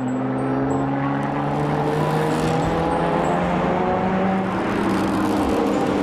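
Race car engine sound effect: a steady engine drone under a hiss of rushing noise.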